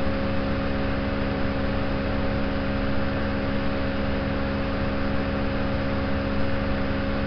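Steady hiss with a constant low electrical hum, unchanging throughout: background noise of the recording setup.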